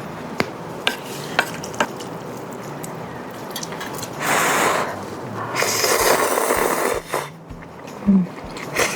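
Ramen eating sounds: utensils clicking against a bowl several times, then two longer stretches of noodle slurping, and a couple more clicks near the end.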